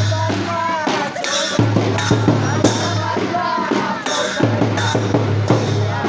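Music: a song with a singing voice over drums and a deep, held bass note that drops out and returns every couple of seconds.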